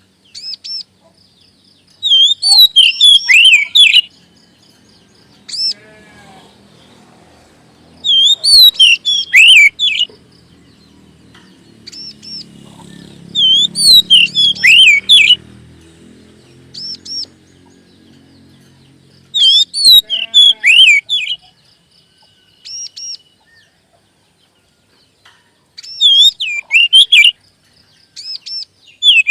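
Oriental magpie-robin singing: loud bursts of quick, varied whistled notes, each burst about two seconds long, coming every five or six seconds with a few single calls between.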